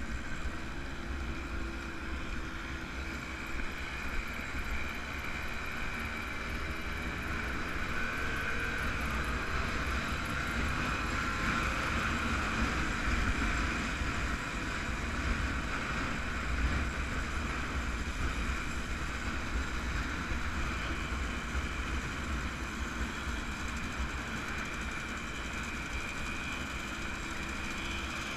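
Small vintage motorcycles running on the road, heard from a riding motorcycle, their engine note steady with a slight swell in the middle, under heavy wind rumble on the microphone.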